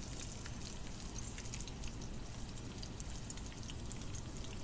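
Potato-chip-crusted snapper pieces frying in shallow oil in a wok: a steady sizzle with many small scattered pops and crackles.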